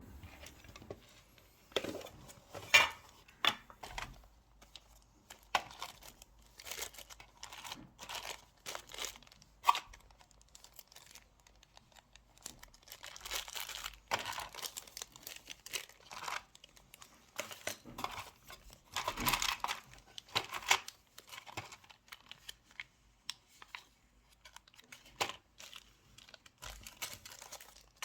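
Crinkling and rustling handling noise with scattered small clicks and taps, in irregular bursts.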